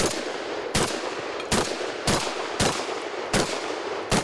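Mossberg 930 JM 12-gauge semi-automatic shotgun fired in rapid succession, about seven shots roughly three-quarters of a second apart, each followed by an echo off the range.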